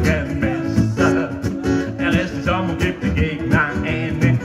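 Live guitar duo playing an upbeat tune: a strummed acoustic guitar keeping the rhythm under an archtop electric guitar played through a small amplifier.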